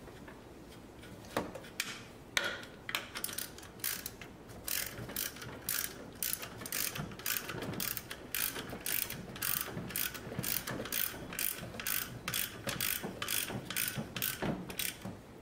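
Socket ratchet wrench clicking as it turns a master cylinder mounting nut on a brake booster, in repeated back-and-forth strokes: a few scattered clicks at first, then a steady run of quick clicks from about five seconds in that stops shortly before the end.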